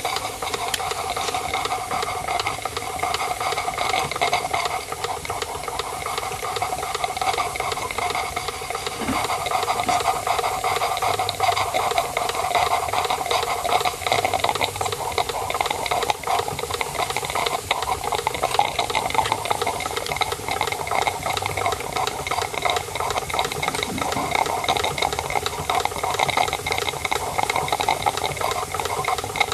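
Märklin 16051 model steam engine running steadily: rapid, even exhaust chuffing through its chuff pot, with steam hiss and a light rattle from the running gear.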